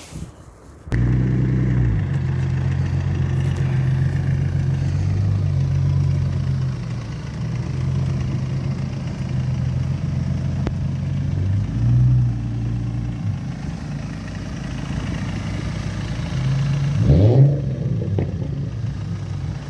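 Car engine running steadily, the BMW E91 320d's diesel, starting suddenly about a second in, with a brief rising sweep in pitch near the end.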